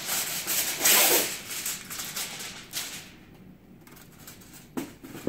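Plastic bag rustling and crinkling as it is handled, loudest about a second in, then dying away, with a light knock near the end.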